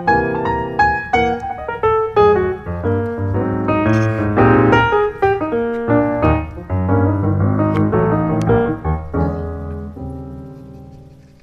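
Background piano music, a lively keyboard tune with a bass line, fading out over the last two seconds.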